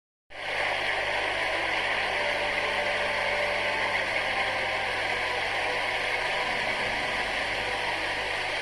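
A steady, even rushing noise that starts abruptly right at the beginning and holds level throughout.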